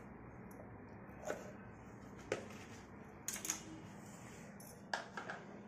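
Faint, scattered taps and clinks of kitchen work: a knife tapping a wooden board as tomato is cut, then a steel mixer-grinder jar being handled on the counter. There are single taps about a second apart, then small clusters of clinks later on.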